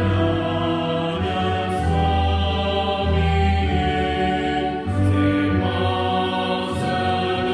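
A hymn sung by voices in long held notes, moving note by note over a steady low accompaniment.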